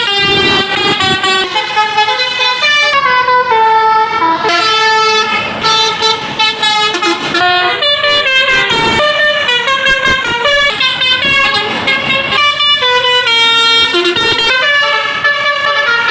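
Tour bus's multi-tone 'telolet' air horn playing a fast melody, note after note at shifting pitches.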